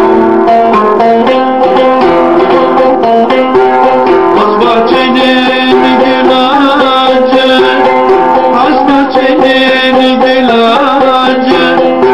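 Cümbüş, the metal-bowled Turkish banjo-lute, picked with a plectrum in a continuous run of ringing notes.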